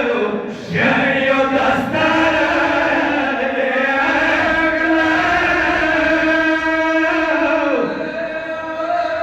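A man's voice chanting a Pashto mourning lament for Imam Hussain in long, drawn-out held notes, with a short break just under a second in and a falling note near the end.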